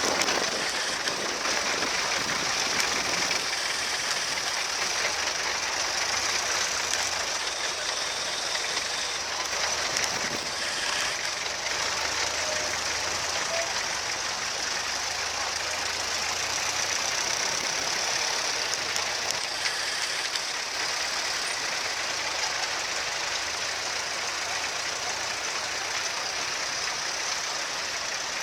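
Vintage tractor engines running steadily, with a knocking engine note over a constant hiss.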